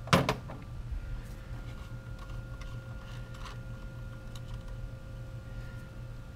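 Metal hand tools handled: a socket and ratchet give one sharp clack just after the start, followed by a few faint light clicks.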